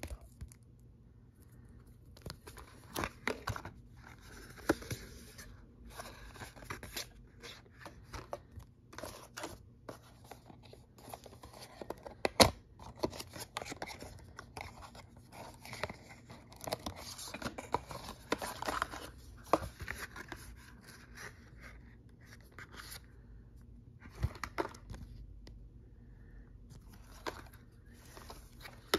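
Hands handling paper and plastic packaging: a card in a plastic sleeve, a white cardboard box opened and its flaps folded, a foil packet. An irregular run of rustles, scrapes and crinkles with scattered sharp clicks, the sharpest about twelve seconds in.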